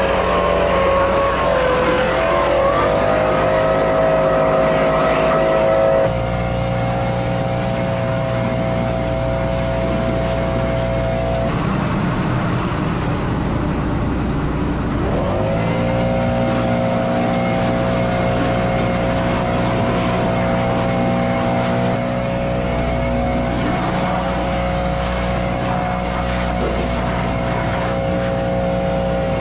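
Combine harvester's diesel engine and drives running steadily at working speed with a steady whine; the pitch climbs about two seconds in and dips and recovers about halfway through.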